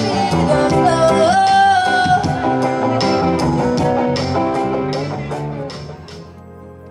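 Live band playing: electric guitar, drums with regular hits, and a singer holding notes. The band fades out near the end into soft, quiet background music.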